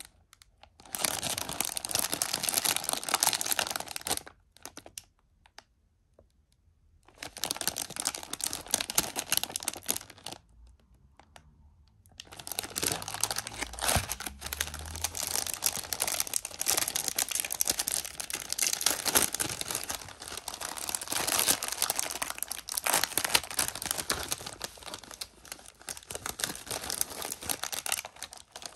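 Crinkling and tearing of a plastic snack wrapper and its foil inner wrap as hands handle the pack, open it and pull the foil back from a plastic tray. It comes in three spells with short quiet pauses between them, the longest starting about halfway through.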